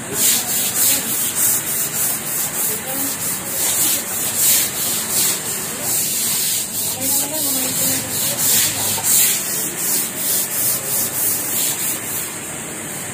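Stiff-bristle floor brush scrubbing back and forth over wet ceramic floor tiles, in a steady rhythm of about two strokes a second, then stopping near the end. The brush is working acetone into the tiles to lift dried paint drips.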